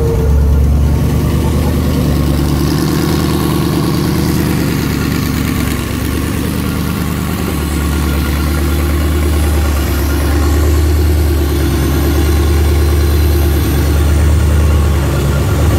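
Twin-turbocharged Mercedes-Benz M119 V8 idling steadily on its first start after the build.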